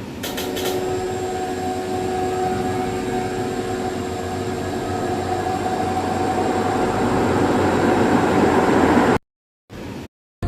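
Electric fan running: a steady motor hum over a rush of moving air, growing gradually louder, cut off abruptly just after nine seconds in, with a short burst of the same sound after that.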